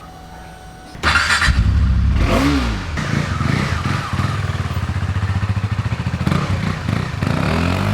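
Small motorcycle engine running and revving under way, with wind rush, starting abruptly about a second in; the engine pitch rises and falls.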